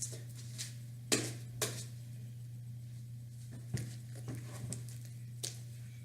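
Scattered light clicks and taps, about six of them at uneven spacing, over a steady low hum.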